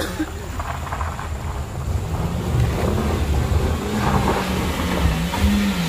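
Bus's diesel engine labouring up a steep, rough climb, growing louder as it approaches, its pitch wavering up and down.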